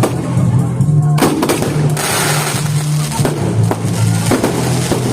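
Fireworks going off, with sharp bangs and a burst of crackling hiss about two seconds in, over loud music with a steady low hum and beat.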